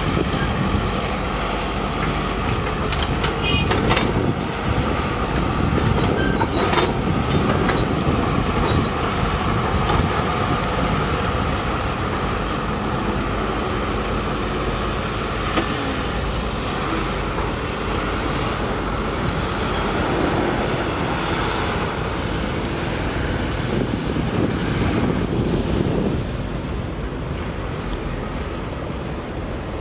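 Heavy construction machinery running: a steady diesel drone with sharp metallic clanks early on, easing off a little near the end.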